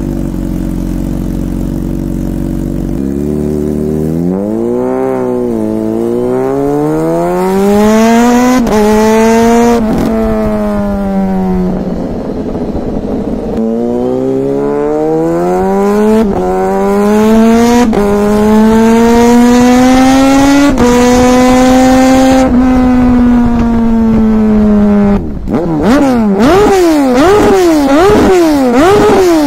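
Kawasaki Z H2's supercharged inline-four running through a dual aftermarket exhaust with the catalytic converter cut out. It idles, then pulls away and accelerates up through the gears, the pitch climbing and dropping at each shift, holds a steady cruise, and gives a run of quick rev blips near the end.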